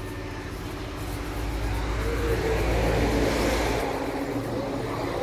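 Motor vehicle engine running steadily. About a second and a half in, it swells louder for roughly two seconds, peaking near the middle, then falls back.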